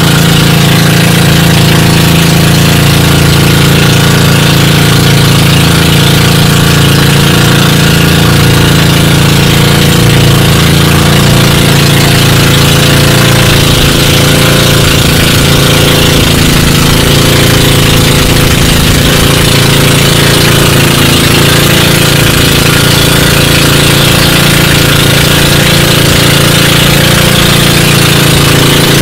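Engine of a motorised outrigger boat (bangka) running steadily at cruising speed, loud and close, with no change in pitch.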